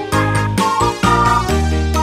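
Upbeat background music with a regular beat and bright melody notes, in the style of children's music.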